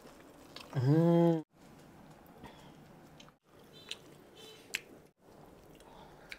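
Close-miked chewing and biting into chicken, with soft wet mouth clicks and a few sharp ticks. About a second in, a man gives one short, loud hum with his mouth full.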